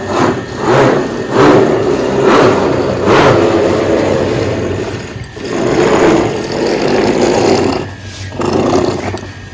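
A small engine running, its sound swelling and easing several times as if revved.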